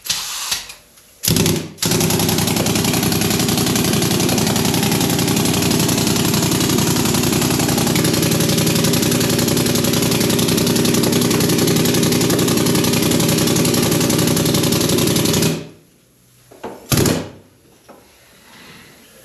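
Pneumatic sand rammer hammering rapidly as it packs foundry sand into a mold flask: a short burst, then about fourteen seconds of steady running that stops suddenly. A single knock follows near the end.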